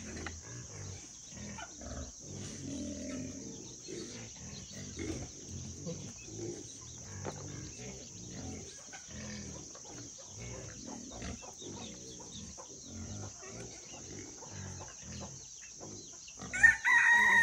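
A chicken clucks loudly once near the end. Under it run a steady high insect drone and soft knocks and rustles of ripe papaya being cut with a knife and handled.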